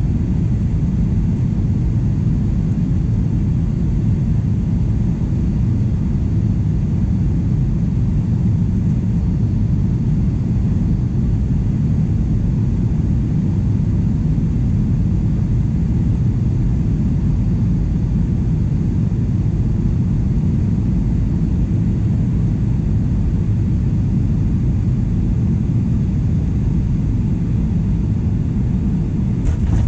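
Steady low rumble inside the cabin of a Boeing 737-800 on its descent: airflow and CFM56-7B engine noise, even throughout with no sudden events.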